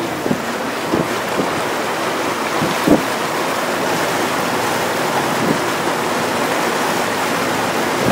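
Blizzard wind and storm surf making a loud, steady rushing noise, with wind buffeting the microphone in a few low thumps, the strongest about three seconds in.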